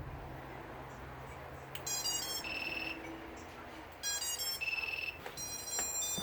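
Electronic beep tones from an FPV quadcopter's BLHeli_32 ESCs sounding through the motors: a quick stepped run of notes about two seconds in and again about four seconds in, each ending in a held beep, with more beeps near the end over a low hum.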